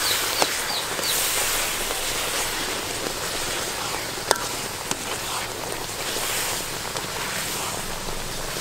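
Palm fruit pulp bubbling and sizzling in a metal wok, a steady hiss, while a metal ladle stirs it, with a couple of sharp clinks of the ladle against the pan.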